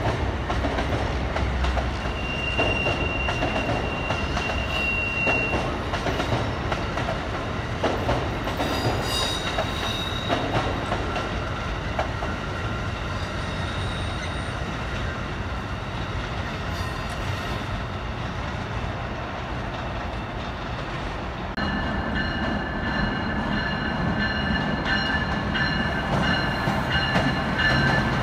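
Train running on the rails, a steady rumble and clatter throughout. A single high steady tone sounds for a few seconds near the start. About two-thirds of the way through, a louder set of high steady tones joins in and holds.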